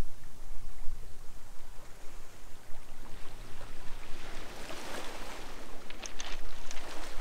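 Wind buffeting the microphone over surf at the shore; a rush of breaking water swells up about four seconds in, with a few sharp clicks near the end.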